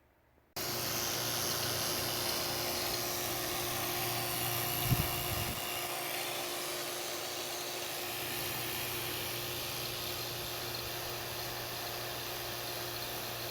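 A machine running steadily with a constant motor hum, with one brief thump about five seconds in.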